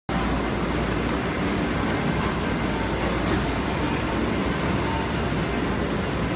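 Steady hum and noise of a Taoyuan Airport MRT express train standing at the platform, mixed with the bustle of passengers boarding, with a brief click a few seconds in.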